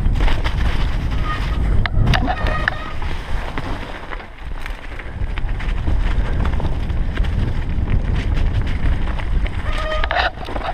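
Wind rumbling on a helmet camera's microphone as a mountain bike is ridden down a rough, rocky trail, with frequent clicks and rattles from the bike over the bumps.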